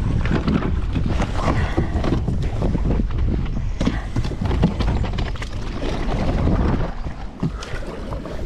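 Irregular knocks and scuffs on a plastic sit-on-top kayak, over a steady low rumble of wind buffeting the microphone.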